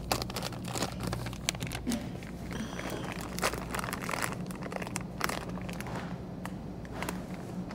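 Plastic packaging of wipes crinkling and crackling as the packs are handled, in many short irregular crackles, over a low steady hum.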